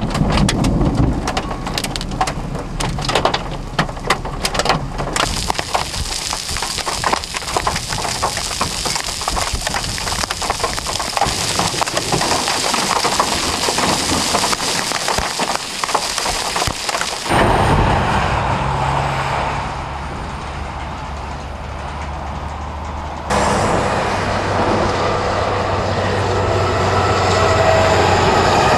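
Hail pelting down: a dense rattle of hailstones striking, heaviest in the first few seconds, over a steady hiss of rain. After about 17 seconds it cuts to a steady rush of wind on the microphone with a low hum, cut again a few seconds later.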